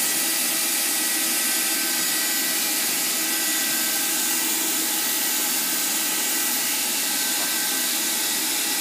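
Hot-air welding machine's blower running steadily, a constant rushing hiss with a faint high whine.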